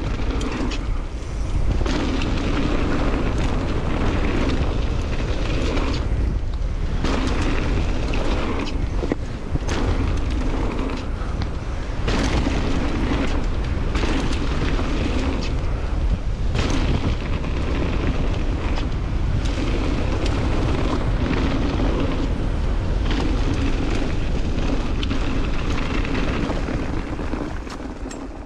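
Mountain bike descending a dirt trail. Wind rumbles on the camera microphone over the tyres rolling, with frequent short knocks and rattles as the bike hits bumps and roots.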